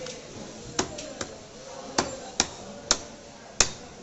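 Chicken being chopped with a butcher's blade on a chopping block: six sharp chops, unevenly spaced about half a second to a second apart.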